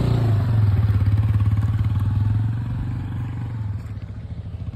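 Motorcycle engine running steadily while being ridden, a little quieter after about two and a half seconds.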